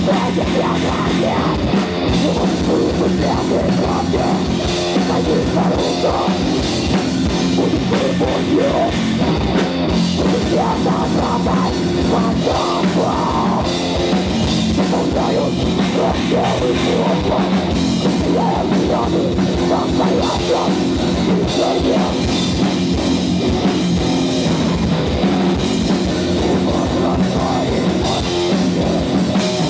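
A heavy metal band playing live and loud: distorted electric guitar, bass guitar and a drum kit.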